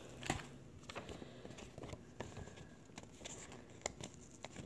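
Faint rustling of package material being handled, with a few small sharp ticks.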